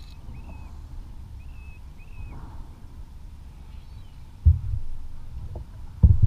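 Steady low rumble of wind and water on a kayak-mounted camera, with two heavy low thumps against the kayak's hull, the first about four and a half seconds in and the second near the end.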